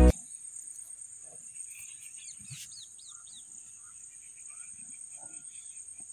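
Faint background with a few quick falling bird chirps about two and a half seconds in, then a row of short repeated chirps, over a thin steady high-pitched whine.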